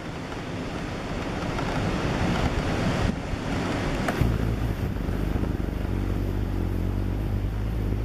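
Rough typhoon-driven surf churning and washing over a concrete seawall, with strong wind. About halfway through a deep low rumble comes in under the surf.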